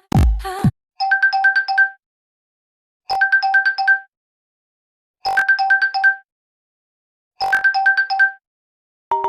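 Huawei Nova 5T built-in EMUI 12 ringtone: a short electronic phrase of about five quick notes, repeated four times roughly every two seconds with silence between. Just before it, the previous ringtone ends with a low electronic hit. Near the end the next ringtone starts with rising mallet-like notes.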